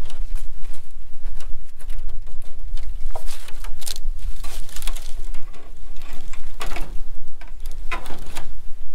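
Wind buffeting the microphone with a constant low rumble, over irregular rattles and scrapes of a thin plastic greenhouse panel being handled and pushed back into its aluminium frame.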